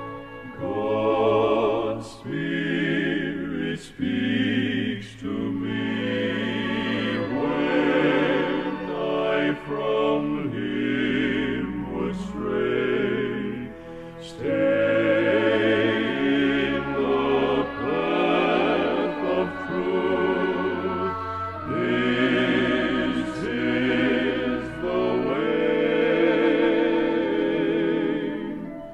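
Male gospel quartet singing held notes in close harmony with vibrato, in phrases of a few seconds with short breaks between them.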